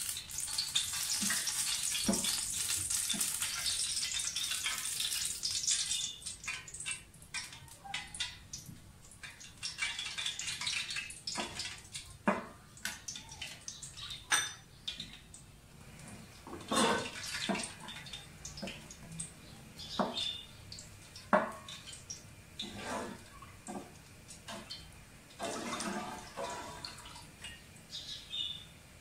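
Wooden spoon scraping and knocking against the bottom of a large aluminium pot, breaking up solid ghee in oil that is heating. A steady hiss for about the first six seconds, then scattered short scrapes and taps.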